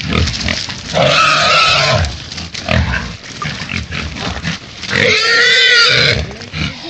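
Feral pig, caught and held by hunting dogs, squealing in distress: two long arching squeals, about a second in and again about five seconds in, with scuffling noise between them.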